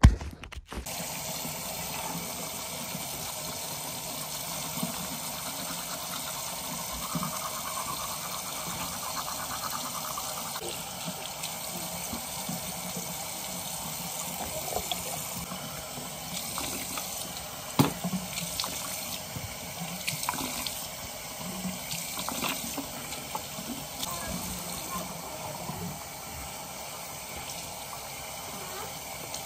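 Water running steadily from a tap into a sink, with a few light knocks and clatters; the sharpest comes a little past halfway.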